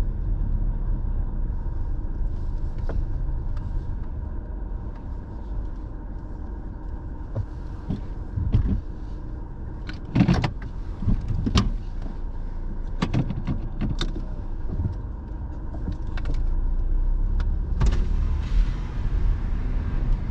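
Car creeping forward at low speed, heard from inside the cabin: a steady low engine and road rumble, with scattered short clicks and knocks around the middle and a louder hiss near the end.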